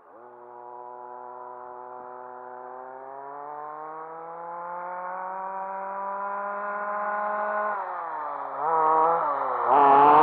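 RC car's motor and gear whine, tall-geared, rising slowly and steadily in pitch as the car gathers speed. Near the end it drops and wavers as the car slows, then picks up again, much louder.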